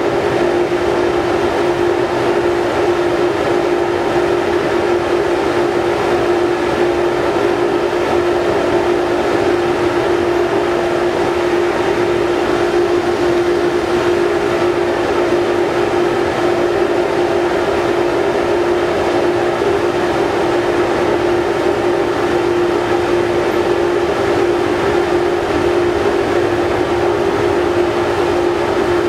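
Steady drone of the MV Salish Eagle's engines and shipboard machinery heard on deck while the ferry is under way, with a constant mid-pitched hum over it.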